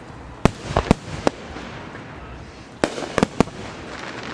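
Aerial fireworks display: sharp bangs of shells bursting, about four in quick succession in the first second and a half and another cluster of about four around three seconds in, over a steady low rumble. The uploader takes the shells for 5-inch mortars.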